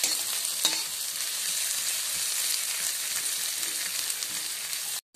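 Sliced onions sizzling in hot oil in a kadai, stirred with a metal spatula, with one sharp clack under a second in. The sound cuts out briefly just before the end.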